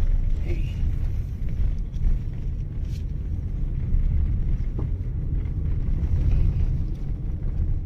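Steady low rumble of a car on the move, heard from inside the cabin.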